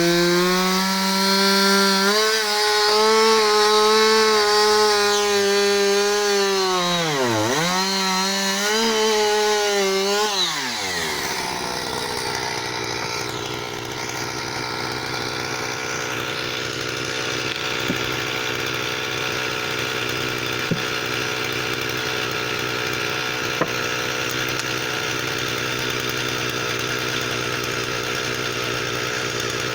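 Husqvarna 359 two-stroke chainsaw running at high revs while cutting firewood, the revs dipping sharply once about seven seconds in and recovering. About eleven seconds in it drops back to a lower, steady idle, with a few light knocks.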